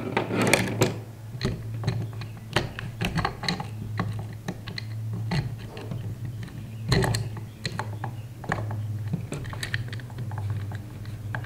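Steel saw chain clinking and rattling as it is handled and fitted around a pole saw's guide bar and drive sprocket: a string of irregular small metallic clicks, with a few louder clatters.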